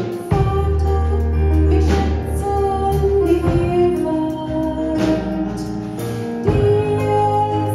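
A woman singing a German worship song into a microphone, accompanied by a digital piano.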